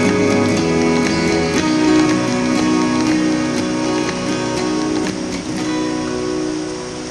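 Background music led by plucked and strummed guitar, fading out near the end as a steady rush of water comes through underneath.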